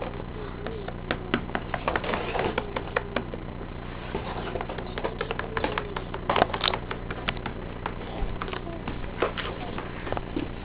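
Irregular light clicks and taps of small objects being handled and moved about, over a steady low hum.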